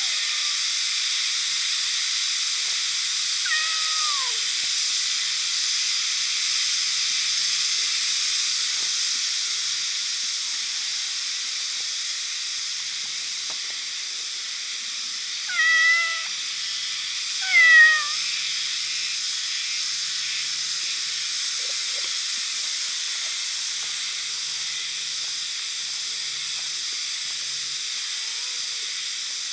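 Cat meowing: one falling meow about four seconds in, then two louder meows a couple of seconds apart around the middle. A steady high hiss runs underneath.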